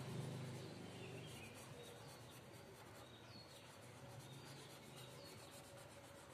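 Faint scratching of a marker on a whiteboard in quick, short repeated strokes.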